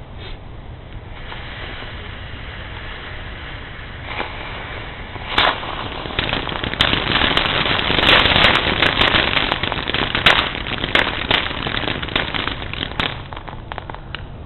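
Consumer fireworks going off: a steady hiss builds, then after a couple of sharp bangs a dense run of rapid crackling and popping, loudest midway, thins out near the end.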